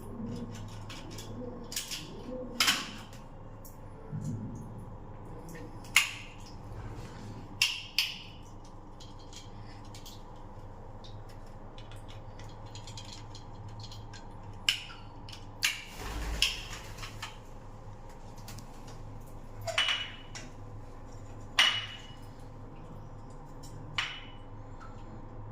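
About a dozen sharp, scattered clicks and knocks of small hard objects being handled, over a steady low hum. A pigeon coos in the first few seconds.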